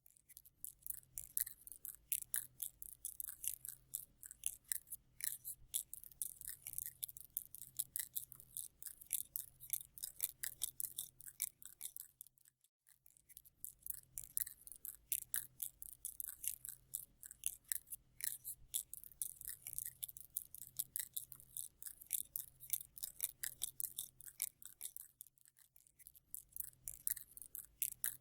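Spider sound effect: rapid, irregular dry clicking and scratching, crisp and high-pitched, breaking off briefly about halfway through.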